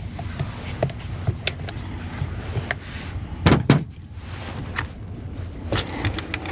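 Clicks and clunks of an outboard remote control lever being worked through its shift detents, with a louder double clunk about halfway through and a run of clicks near the end, over a low steady hum.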